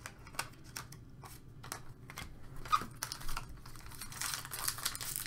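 Trading cards being shuffled and slid against each other in the hands, a string of small ticks and slaps. From about three seconds in, a foil card pack's wrapper crinkles as it is picked up and worked open.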